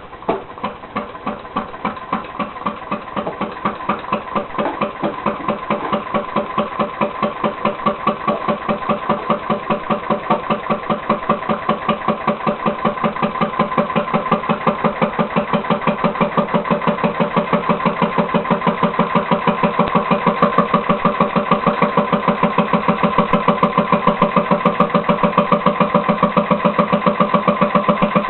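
Leaf blower engine converted to a compressed-air motor with a timed air valve, running: a quick pulse of air on each stroke. It speeds up and gets louder over the first ten seconds or so, then holds a steady fast rate.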